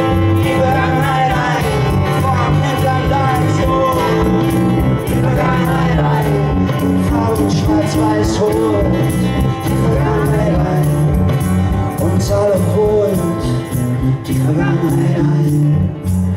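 Live band music: a male voice sings over guitar, bass and a steady drum beat.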